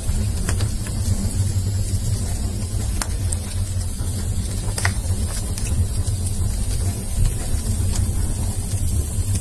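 Wood fire of sawn timber offcuts burning with a steady low roar of flames, broken by a few sharp crackles from the burning wood.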